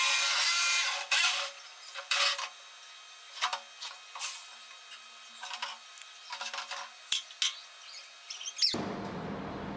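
Corded jigsaw cutting through the wall of a plastic drum for about the first second, followed by a few short cutting bursts and scattered scraping and rubbing of the plastic. Near the end a steady hum starts suddenly.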